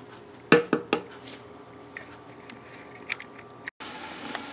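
Wooden spoon stirring onions and celery sautéing in butter in an electric pressure cooker's metal inner pot, knocking sharply against the pot twice, about half a second and a second in, with lighter scrapes and ticks. Near the end, a steady sizzle of the vegetables frying.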